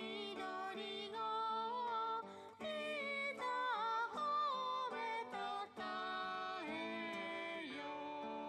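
A recorded song playing back: a voice singing a wavering melody over acoustic guitar.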